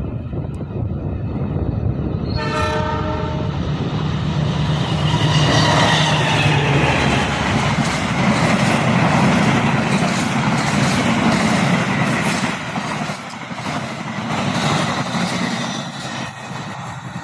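An Indonesian diesel-hauled passenger train blows one short horn blast as it approaches, then passes close by. The locomotive and carriages rumble past for several seconds, their wheels clattering at a regular beat over the rail joints, and the sound fades near the end.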